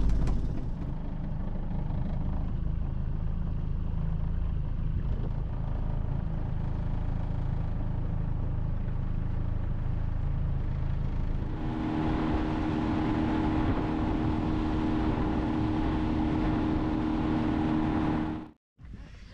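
Yamaha outboard motor on a small boat, running at low speed with a low steady hum; from about twelve seconds in it runs faster with a higher, steadier drone and rushing water and wind noise, then cuts off suddenly near the end.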